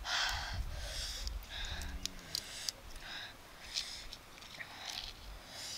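A person eating sour wild flower stems: short hissing breaths and sniffs, sucking in air, with sharp mouth clicks and lip smacks.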